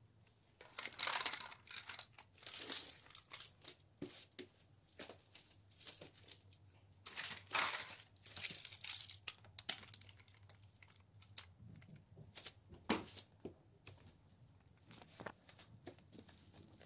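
Irregular bursts of close rustling and scraping as a striped woven cloth is handled and pushed aside. The loudest bursts come about a second in, around seven to nine seconds in, and at about thirteen seconds.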